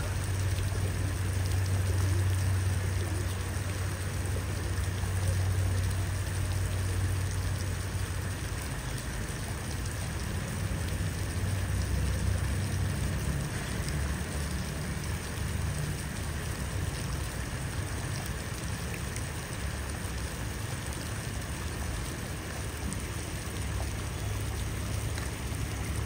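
Pigeons bathing in a shallow puddle, a continuous patter of small splashes and wing flutters in the water, over a steady low rumble.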